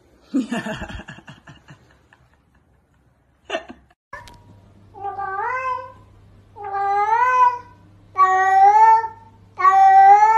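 A cat meows four times in a row, about a second and a half apart, each a drawn-out call that rises, dips and rises again, growing louder, over a steady low hum. A short sound and a click come before it in the first few seconds.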